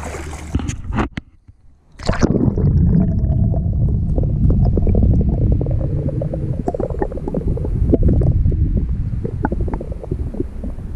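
A few light clicks, then near quiet. About two seconds in, a loud, muffled underwater rumble cuts in: water rushing around a submerged action camera's housing, with scattered small clicks and knocks.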